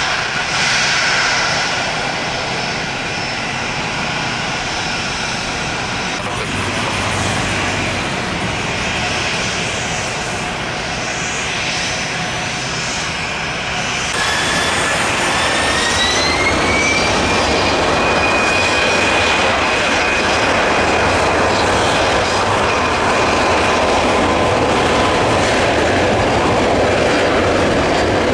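Jet airliner engines running with a steady roar. About halfway through, the roar grows louder and a high whine rises in pitch, then holds steady as the engines spool up.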